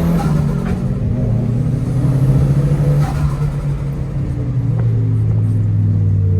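Turbocharged KA24 four-cylinder of a Nissan S13 running steadily under load through an HKS Hi-Power exhaust. A faint turbo whistle rises and falls about two seconds in.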